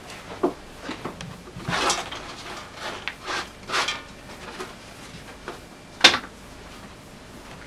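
A hand working over a wooden tabletop: several short brushing, scraping strokes, then a sharp knock about six seconds in.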